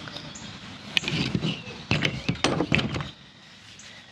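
A quick run of knocks and clatters, like hard objects being handled and set down, bunched between about one and three seconds in.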